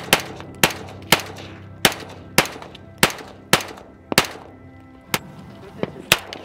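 Rapid semi-automatic gunfire from an AR-15-style rifle: about a dozen sharp shots, roughly half a second apart and slightly uneven, each with a short echoing tail. Background music plays underneath.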